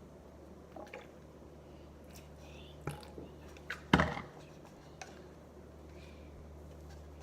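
Slime being mixed in a bowl: faint wet squishing with a few light clicks, the loudest about four seconds in, over a steady low hum.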